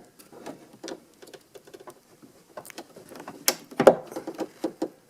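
Irregular small clicks, taps and rattles of hands reconnecting the door handle's linkage rod and its plastic clip inside a pickup truck door. Two sharper clicks come between three and a half and four seconds in.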